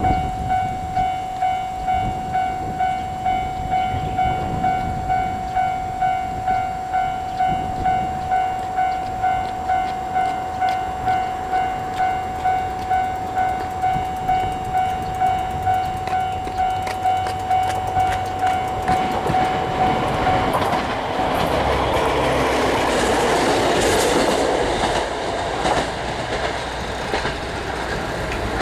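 Japanese level crossing's electronic warning bell ringing kan-kan at about one and a half strokes a second. About two-thirds of the way through it cuts off as a diesel railcar passes, its engine running and its wheels clicking over the rail joints.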